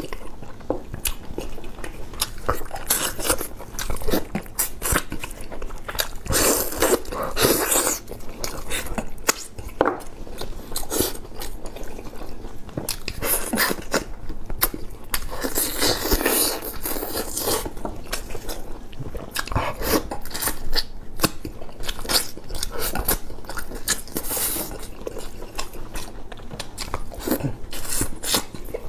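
Close-up chewing and biting as a person eats braised pork: irregular wet smacks, bites and clicks, with no steady rhythm.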